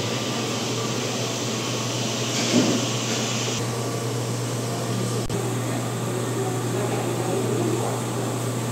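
Steady machine noise of the room: a constant low hum under an even rushing hiss, as from air conditioning or refrigeration running. A brief, brighter hiss rises about two and a half seconds in and stops about a second later.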